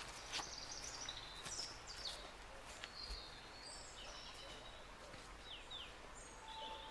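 Birds chirping and singing in short high notes and quick sweeps over quiet woodland ambience, with a few faint ticks.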